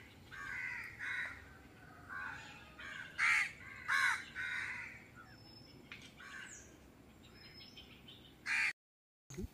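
Crows cawing in the trees: a run of short caws in the first half, then fainter calls. The sound drops out for a moment near the end.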